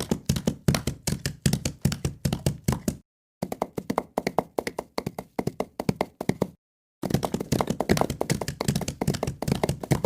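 Three short sound-effect clips in a row, each a rapid series of sharp knocks or taps, about four to five a second, with a brief gap of dead silence after the first and after the second.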